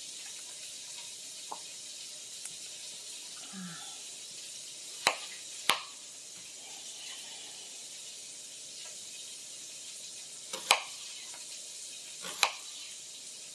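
Knife slicing an onion on a cutting board, with four sharp knife strikes on the board, over the steady sizzle of peppers and carrots sautéing in a wok.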